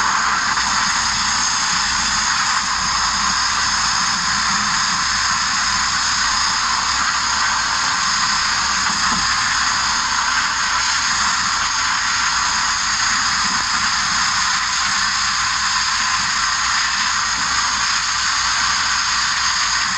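Abrasive media blasting nozzle running continuously: a steady, loud hiss of compressed air and grit with no pauses.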